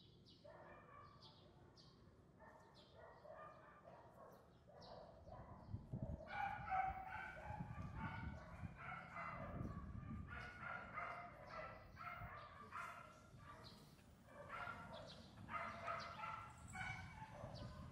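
A dog barking over and over in short, evenly spaced barks, louder from about six seconds in, with birds chirping in the first few seconds.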